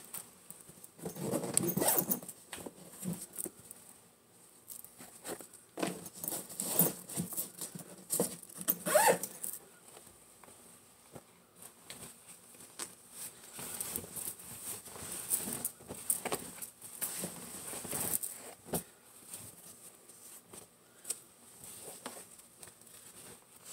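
Clothes being picked up, shaken out and folded by hand: fabric rustling in irregular bursts with small clicks, loudest about a second in and again around six to nine seconds, then softer.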